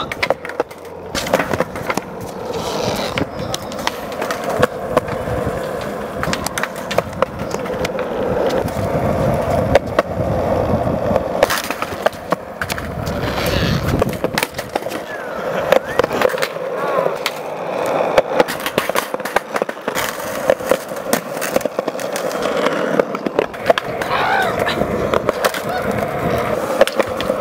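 Skateboard wheels rolling on concrete, with many sharp pops, board slaps and landings scattered throughout, and trucks grinding along a concrete ledge.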